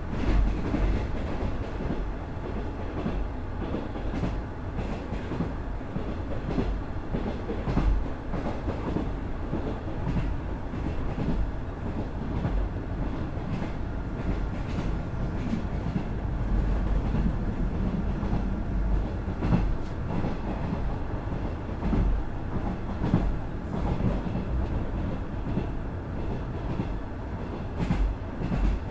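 Running noise of a KiHa 110 series diesel railcar with its Cummins DMF14HZA engine, heard from inside the car. A steady rumble of engine and wheels, with occasional wheel clacks over rail joints.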